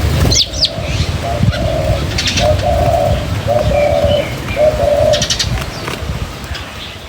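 A dove cooing, about five low coos in a steady run, with small birds chirping higher up and a low rumble underneath.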